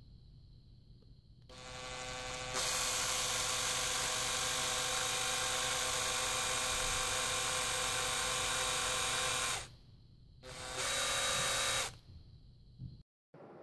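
Makita cordless drill spinning a pair of wires in its chuck to twist them together. The motor whine starts slowly, speeds up a second later and runs steadily for about seven seconds, stops, then runs again briefly for a second or so.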